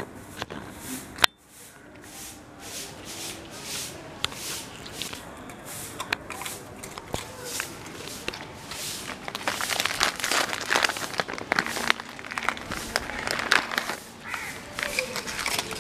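A dog crunching and chewing dry biscuits: a run of short, crisp crackling crunches that get thicker and louder from about ten seconds in. One sharp click about a second in.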